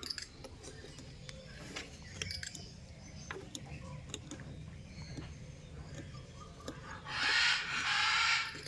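A macaw gives a harsh, raspy squawk lasting about a second and a half, near the end. Before it there are only faint clicks and small chirps over a low steady hum.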